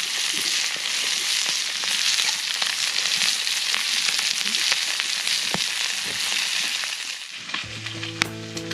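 Food sizzling in a skillet, a steady hiss. The sizzle fades about seven and a half seconds in as background music begins.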